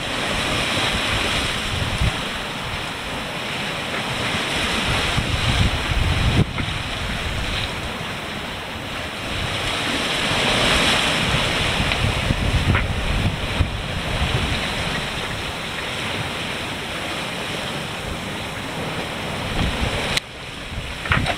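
Wind buffeting the microphone over the rush and splash of seawater along a sailboat's hull as it runs downwind through choppy sea. The noise swells and eases with the waves and drops off suddenly near the end.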